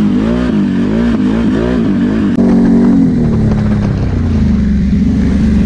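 ATV engine revving, its pitch rising and falling quickly with on-off throttle for about three seconds. After that it settles to a steadier note: a Can-Am Renegade XMR 1000R's V-twin running at an even speed.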